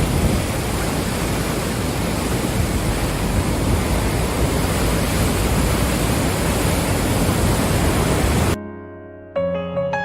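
Loud, steady rushing of floodwater that cuts off abruptly about eight and a half seconds in. About a second later, piano notes begin.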